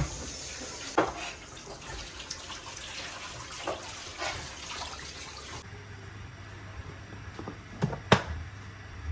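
Kitchen tap running into a sink, with a few knocks and clinks of utensils or dishes; the running water stops abruptly partway through, and a few sharp knocks follow, the loudest near the end.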